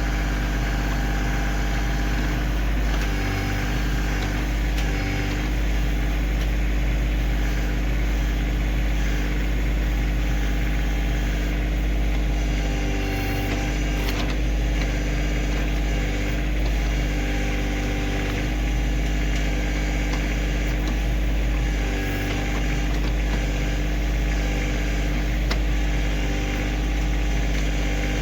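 Kioti CK2610 compact tractor's diesel engine running steadily while working the backhoe, its note shifting briefly a few times as the hydraulics take load.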